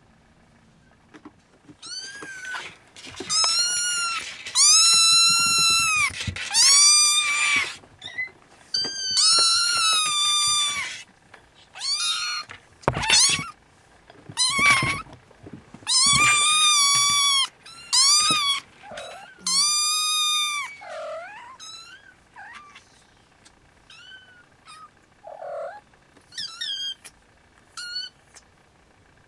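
Siamese kitten mewing over and over in high-pitched calls. The calls are loud and long through the first two-thirds, then turn fainter and shorter near the end. A couple of sharp thumps are heard about halfway through.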